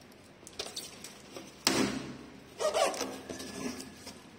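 Cardboard box and its packing being handled as it is opened: scattered small clicks, a sudden loud clack about a second and a half in, then a loud scraping rustle about a second later.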